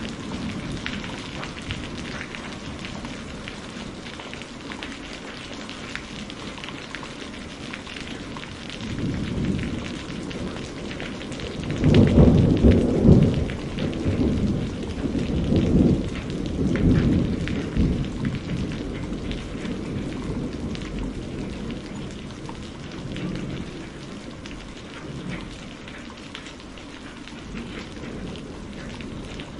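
Heavy rain falling steadily. A deep, uneven rumble swells in about nine seconds in and is loudest from about twelve to eighteen seconds.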